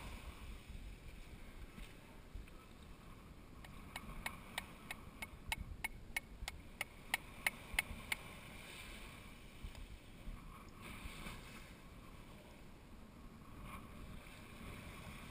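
A hammer striking a conch shell in a quick run of sharp clicks, about three or four a second for some four seconds and loudest near the end: breaking into the shell to get the conch out. A faint steady hiss of wind and surf lies under it.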